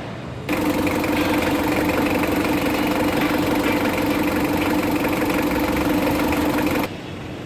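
Mitsubishi L300 diesel engine held at a steady raised speed for about six seconds, a free-rev to show its black exhaust smoke. The note is loud and even, and it starts and stops abruptly.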